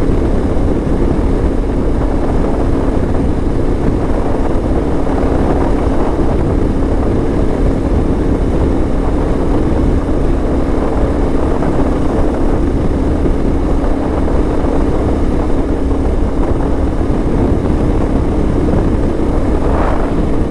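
Motorcycle cruising at a steady speed: a constant engine drone with a steady hum under loud rushing wind.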